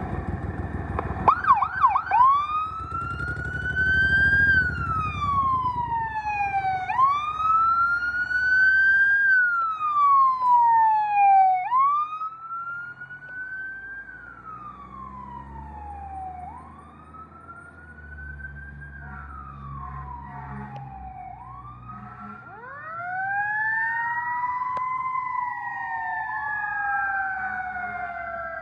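Fire rescue truck sirens: a short air horn blast opens, then a few quick yelp sweeps, then an electronic siren wailing in slow rise-and-fall cycles about every five seconds over the truck's engine rumble. Near the end a Federal Q2B mechanical siren winds up slowly and coasts down together with the wail.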